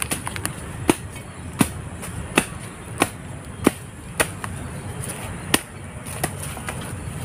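Hand digging tool chopping into soil and roots at a tree's base, sharp strikes about every two-thirds of a second, thinning out in the second half with one hard strike about five and a half seconds in.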